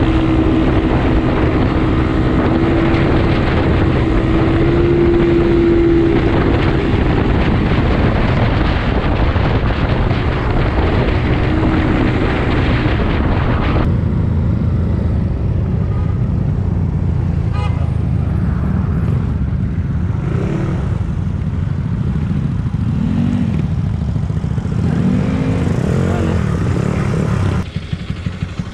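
A Yamaha Mio scooter's engine runs with wind rushing on the helmet microphone while riding at speed. About 14 seconds in, the wind noise drops away as the scooter slows. The engine's pitch then rises and falls a few times, and the sound drops suddenly just before the end.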